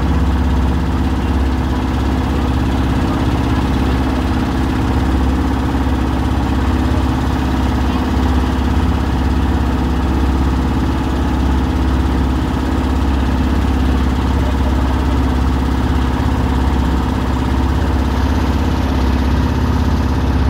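A river boat's engine runs steadily at an even speed, with a constant low hum, while water splashes and rushes along the hull.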